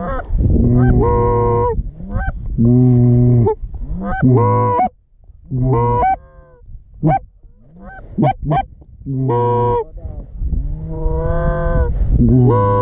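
Goose honking: a series of long, low, drawn-out honks, each breaking upward at its end, with a quick run of short clucks in the middle.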